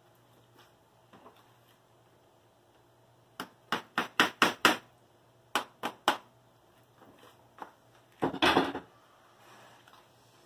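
A soft-faced mallet knocking on a plywood kayak frame to nudge it square to the stem: a quick run of about six taps, then two more. A brief, louder clatter follows about eight seconds in.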